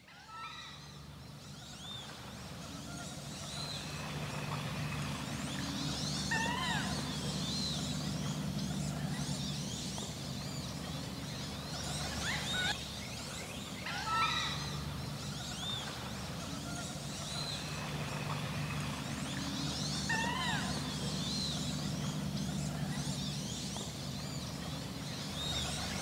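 Wood ducks calling: repeated squealing whistles that slide upward, with thin high chirps among them, over a steady low hum. The sound fades in over the first few seconds.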